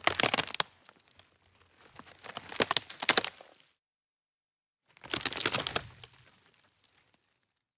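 Dry wood snapping and crackling, in three bouts of quick splintering cracks about two seconds apart.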